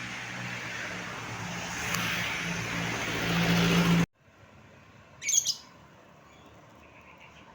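A heavy road vehicle passes close with engine drone and road noise, building up over about four seconds, then the sound cuts off abruptly. After that there is quiet traffic background with one short high chirp about a second later.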